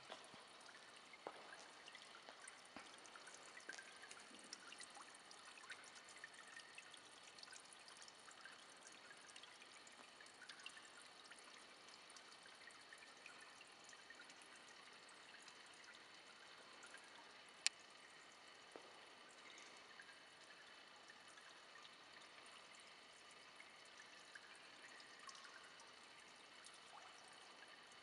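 Faint trickling water under a low hiss, with scattered small ticks and one sharp click about two-thirds of the way through.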